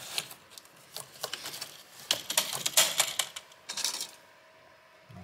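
The HP ProBook 450 G8's plastic screen bezel being pried up along its bottom edge near the hinges: a run of light clicks and crackles as the trim and its adhesive let go. The clicks are busiest about two to three seconds in and stop about four seconds in.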